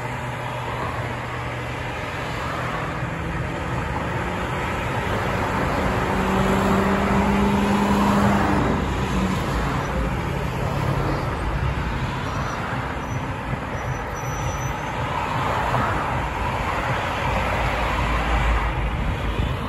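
Steady road traffic with cars passing close by, their tyre and engine noise swelling and fading as each goes by. It is loudest about eight seconds in, where one vehicle's engine hum stands out briefly.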